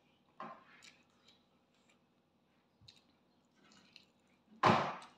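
Close-up eating sounds of someone chewing rice and pork taken by hand: faint small mouth clicks, a short wet smack about half a second in, and a louder wet bite or smack near the end.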